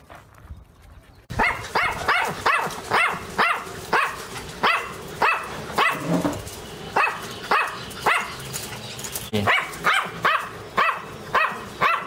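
Small Chihuahua-type dog barking over and over: short, high barks about two or three a second, starting about a second in, with a brief break a little past the middle.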